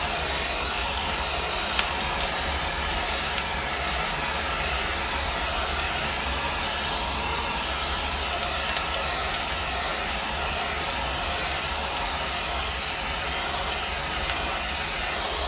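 Cutting torch flame hissing steadily as it heats seized bolts on a hydraulic line fitting, over a steady low machinery hum.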